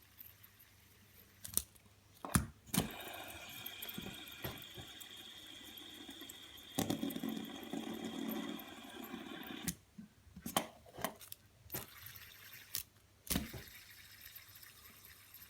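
Fidget spinner whirring steadily for about seven seconds after being spun, with clicks and knocks of handling before and after.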